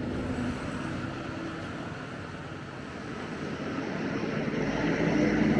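Farm harvest machinery running steadily, with a low engine hum, growing louder over the last couple of seconds.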